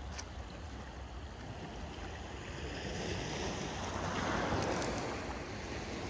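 A small wave washing up the pebble beach, its hiss swelling to a peak about four seconds in and then easing off.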